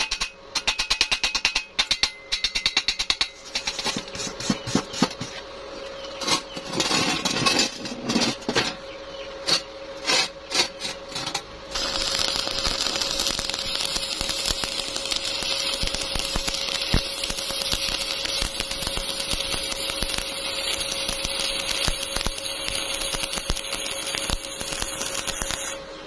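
Stick (arc) welding a steel door hinge onto a steel pipe with a covered electrode. The arc crackles in short stop-start bursts for roughly the first twelve seconds, then burns as one continuous crackling hiss that cuts off just before the end as the rod is lifted away.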